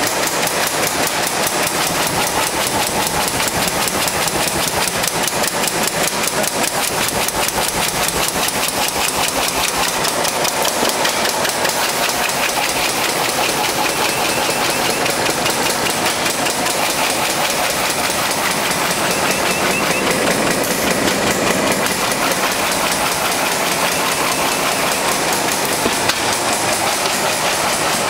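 Automatic side-seal bag-making machine for polyethylene and polypropylene film, rated at 300 bags a minute, running at speed: a fast, even mechanical clatter over a steady hiss.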